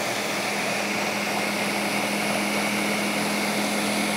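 Ninja blender motor running at a steady speed, a constant low hum under a high whir.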